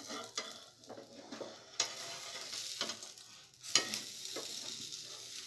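Green gram batter pancake sizzling gently in a non-stick frying pan while a metal spatula scrapes across the pan to work under it for flipping, with a few sharper scrapes about two seconds in and near the end.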